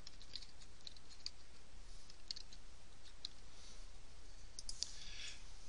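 Computer keyboard keys clicking in scattered, irregular taps as a number is typed in, with a closer cluster of clicks near the end.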